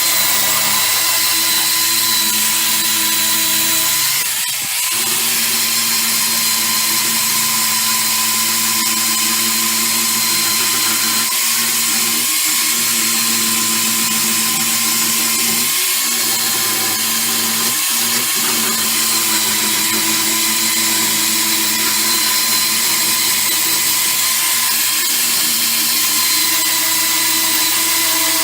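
Power tool running steadily with a whine, driving a wire brush over the car's welded steel bodywork to clean it back; it eases off briefly about four and a half seconds in.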